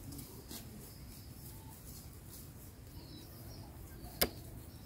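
Quiet outdoor ambience: a low steady rumble with a few faint, short bird chirps, and one sharp click about four seconds in.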